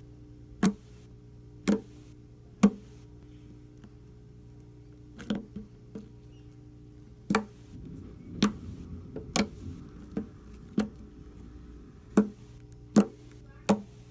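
Glossy slime being squeezed and poked by fingers, giving sharp pops and clicks as air pockets burst, about a dozen at uneven intervals, with soft squishing in the middle.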